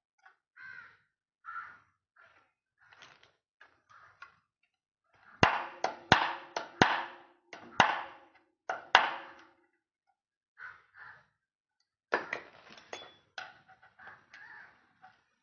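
Metal parts and tools knocking and clinking during bicycle repair work: light scattered clicks, then a run of six or so loud, sharp metallic strikes in the middle with a short ringing after them, and more clatter near the end.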